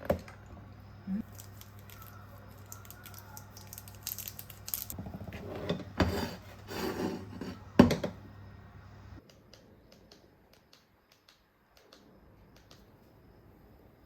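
Objects being handled at close range: rustling and several sharp clicks and knocks, busiest about halfway through, then a quieter stretch with only light ticks.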